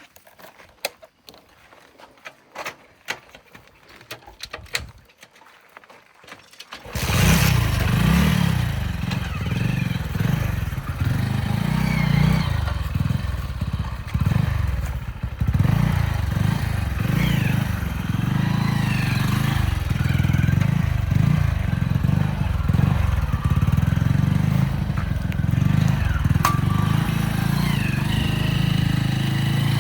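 A few faint scattered clicks and knocks, then about seven seconds in a tractor's diesel engine cuts in suddenly and runs loud and steady, with a low, uneven pulse.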